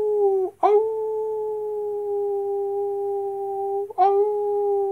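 Long, drawn-out wolf-style howls held at one steady pitch, one after another with only a brief break between them.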